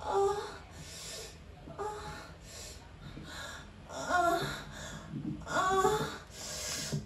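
A man's voice making a string of sharp gasps and short high-pitched cries, about one a second, breath noise in every one. It is a homemade track built from the maker's own vocal sounds rather than samples.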